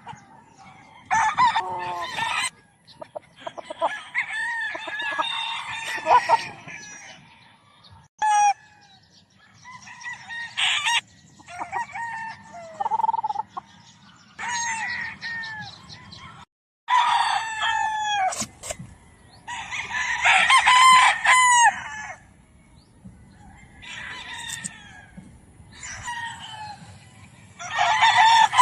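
Many gamefowl roosters crowing one after another, the calls often overlapping, with short pauses between bouts.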